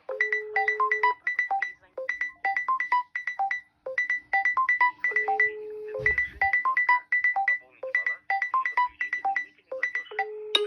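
Mobile phone ringtone for an incoming call: a short melody of quick plucked-sounding notes with a longer held low note, looping with the phrase repeating about every five seconds. A brief low rumble comes about six seconds in.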